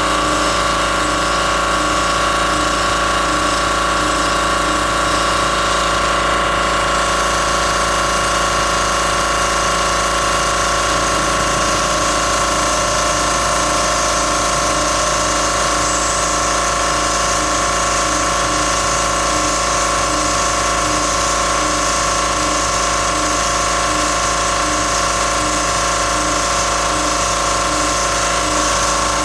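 DIY CNC router spindle running steadily at high speed with a constant whine while the end mill cuts aluminum.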